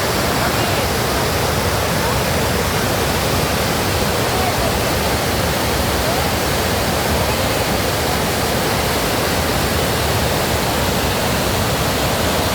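Steady rush of a fast-flowing stream, loud and unbroken.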